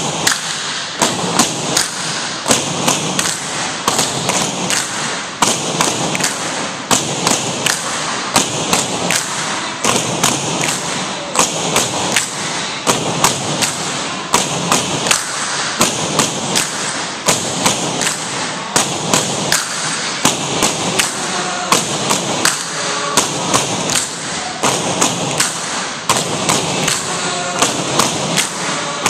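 Tinikling poles knocked on a wooden gym floor and clapped together in a steady repeating beat, about two to three knocks a second.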